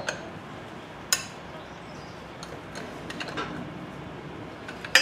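Sparse metallic clicks and clinks from a motorcycle chain breaker tool being worked by hand on a chain master link, with one sharper click about a second in and a few light ticks in the middle. The tool is pressing out a master-link rivet whose head has been ground off.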